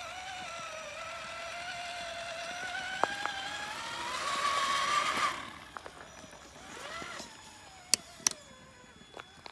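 Traxxas Summit RC monster truck's electric motor and drivetrain whining as it drives on dirt. The pitch rises as it speeds up and cuts off suddenly about five seconds in, comes back briefly, and is followed by two sharp clicks near the end.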